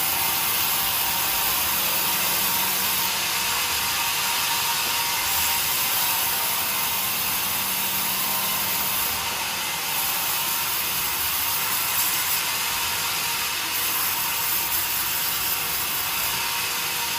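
Sawmill saw cutting through timber, a steady high hiss of blade through wood that carries on without a break.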